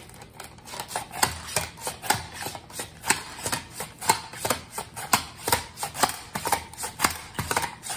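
Onion being sliced on a Pampered Chef Simple Slicer mandoline: the plastic hand guard pushed back and forth over the blade, a sharp scraping cut on each pass, about two or three strokes a second.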